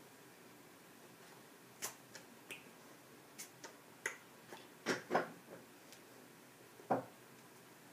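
Irregular sharp clicks and claps from a person's hands, about a dozen in all, with the loudest pair about five seconds in and another near the end.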